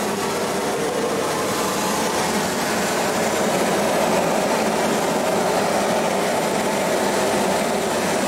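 Concrete pump and spraying rig running steadily, pushing concrete through the hose to the spray nozzle.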